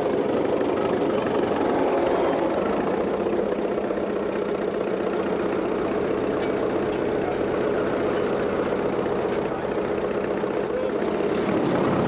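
Fordson tractor's four-cylinder engine running steadily under load as it pulls a mole subsoiler.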